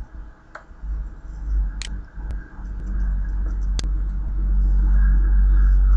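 A few sharp computer-mouse clicks, spaced a second or two apart, over a low rumble that grows steadily louder.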